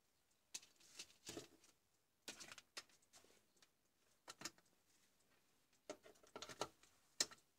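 Faint, irregular clicks and taps of small plastic parts being handled on a workbench, in short clusters with pauses between, the last tap near the end the sharpest.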